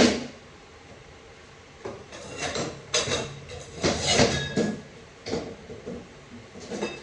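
Metal automatic-transmission parts being handled on the bench: a sharp knock right at the start, then a string of irregular clanks and rattles, some ringing briefly like struck steel.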